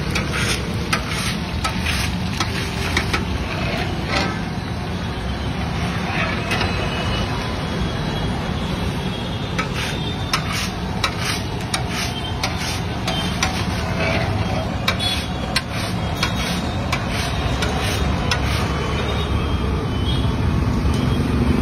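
Banana slices frying in a large kadai of hot oil while a long-handled perforated metal skimmer stirs and scoops them, clinking and scraping against the pan in many short irregular clicks. A steady low rumble of street traffic runs underneath.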